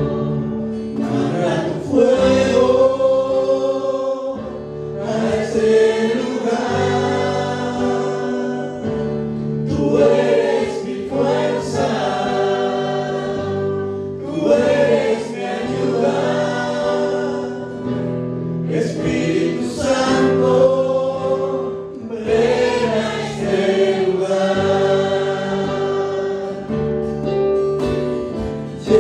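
Christian worship song sung by a group of voices over sustained instrumental accompaniment, in phrases of a few seconds each with long held notes.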